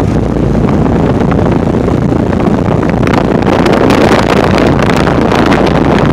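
Rushing air from a running central air conditioner condenser's fan buffeting the microphone: a loud, steady wind-like rush with constant fluttering.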